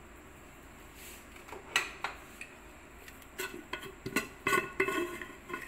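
A utensil clinking against dishware: two light clicks about two seconds in, then from about three and a half seconds a run of quick clinks, each with a short ring.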